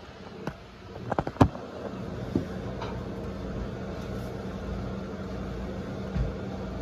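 A few sharp knocks and clicks of handling, a cluster of them about a second in, over a steady low hum.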